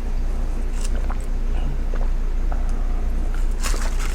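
Steady low hum with a few soft clicks and rustles scattered through it.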